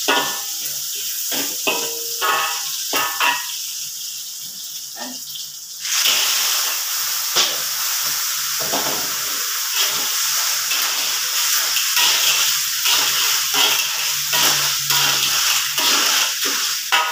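Oil sizzling in a wok, with a metal spatula scraping and clinking against it. About six seconds in, the sizzle suddenly turns much louder as wet clams are tipped in. The hissing goes on loudly while the spatula keeps stirring and knocking.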